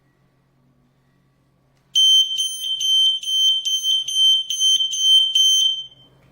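Smoke alarm's piezo sounder going off: a rapid run of loud, high-pitched beeps, about three a second, starting about two seconds in and stopping after about four seconds.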